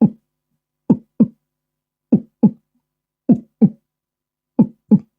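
Heartbeat sound effect: paired lub-dub thumps, one pair about every 1.2 seconds.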